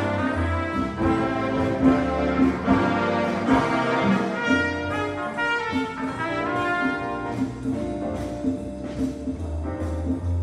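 Big band playing a swing tune live: brass section of trumpets and trombones over a rhythm section of upright bass, drum kit with cymbal strokes, piano and hollow-body electric guitar.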